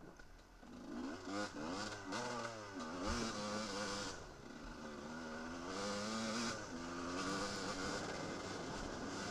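Off-road enduro motorcycle engine being ridden hard along a dirt trail, its pitch repeatedly rising and falling with throttle and gear changes. The engine picks up about a second in.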